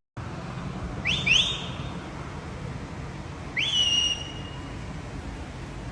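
A whistle being blown to call birds. A quick double whistle comes about a second in, a longer one a little past halfway, and another starts at the very end; each slides sharply up, then holds and eases slightly down. A steady background hiss runs underneath.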